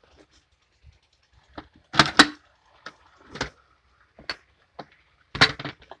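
Knocks, clatters and cardboard scraping as a washing machine trolley stand with plastic rollers is handled in its cardboard box. The loudest are two knocks close together about two seconds in and another near the end.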